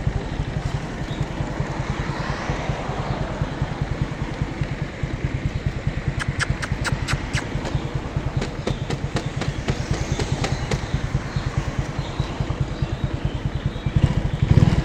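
Small motorcycle engine running at low speed with an even, rapid low pulsing. A quick series of sharp clicks comes in about six seconds in and recurs for several seconds.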